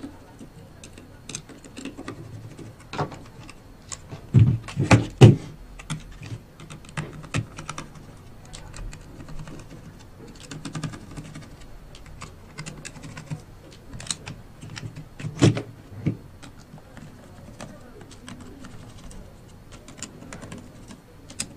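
Small clicks and knocks of hand work on a hexapod robot's metal frame: a screwdriver taking out small screws and the body being handled and turned over. A few louder knocks come about four to five seconds in and again around fifteen seconds.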